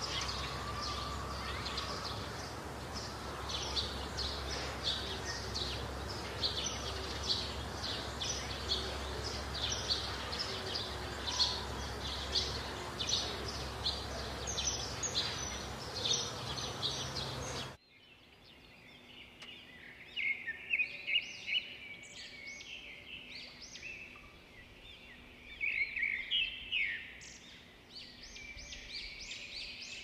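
Birds calling over a steady outdoor background noise: rapid, repeated short chirps at first. About two-thirds of the way through the sound cuts abruptly to a quieter background with more varied chirps and short gliding calls.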